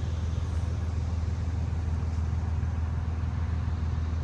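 Steady low drone of an idling vehicle engine, over a haze of urban background noise.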